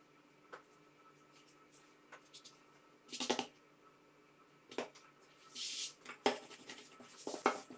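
Hands handling thin, floured sheets of dough on a silicone baking mat: a string of soft slaps, rustles and light knocks as the layers are lifted and laid back down. The loudest comes about three seconds in, with a short hiss just before six seconds and a cluster of small knocks near the end.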